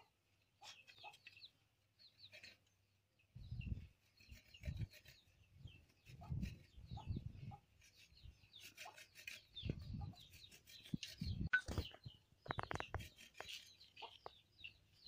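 Chickens clucking and chirping, mixed with irregular dull scraping strokes of food rubbed down a metal box grater over an aluminium vessel; the strokes come quicker and sharper near the end.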